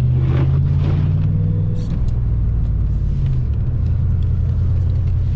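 Ram pickup truck's engine running, heard from inside the cab as a steady low drone that drops slightly in pitch about three and a half seconds in.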